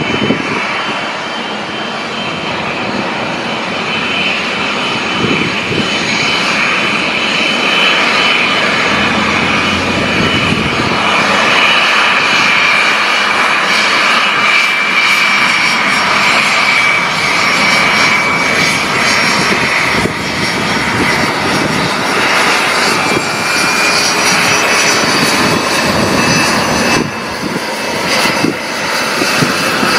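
Cessna Citation CJ business jet taxiing, its twin Williams FJ44 turbofans at low taxi power: a steady high whine over a continuous rushing jet noise.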